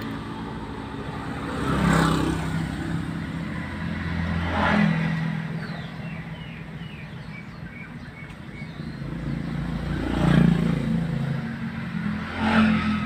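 Motorbikes and other traffic passing one after another, four passes that each swell and fade, heard from inside a stopped car over a steady low hum.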